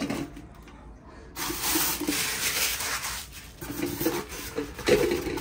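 Handling noise from working on a stand mixer: about a second and a half in, roughly two seconds of rubbing, rustling noise, then a few light knocks and taps near the end.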